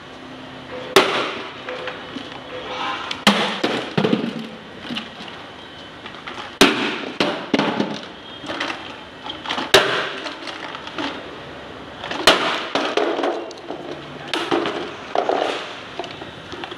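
A spin-welded plastic toy car wheel slammed hard against a concrete floor about six times, a few seconds apart, each blow a sharp crack followed by clattering of plastic. It is a destructive test of the spin-welded joint: the wheel's plastic body breaks apart while the weld holds.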